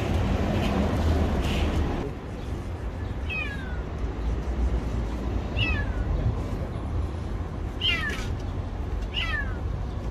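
A kitten trapped inside a parked car's engine compartment meowing four times, about every two seconds, each a short high call that falls in pitch. A low background rumble sits underneath and is louder in the first two seconds.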